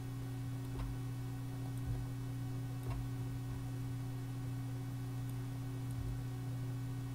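Computer mouse clicking at irregular intervals of about a second, placing pen-tool anchor points, over a steady electrical hum.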